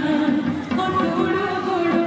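Kulvi nati folk music with singing, a continuous melody played for the dancers.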